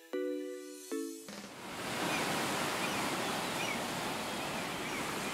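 Background music ends on two sustained chords, then from about a second in a steady wash of ocean surf.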